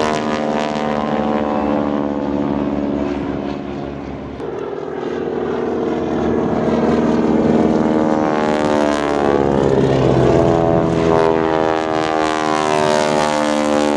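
Propeller engines of the wing-walking team's Boeing Stearman biplanes droning as they fly the display, dipping a little, then swelling louder from about halfway through as the aircraft pass, their pitch bending with the pass.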